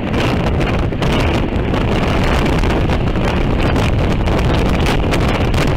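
Heavy, steady wind buffeting on a helmet-mounted action camera's microphone on a moving Honda NC700X motorcycle, with the bike's engine and road noise under it.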